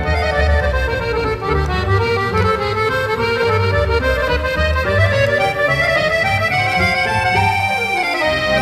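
Background music led by an accordion, with sustained chords over a pulsing bass line and a descending run of notes near the end.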